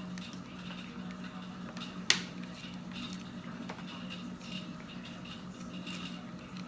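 Small handling noises of a power cable and its packaging being taken out and unwrapped: faint rustles and ticks with one sharp click about two seconds in, over a steady low hum.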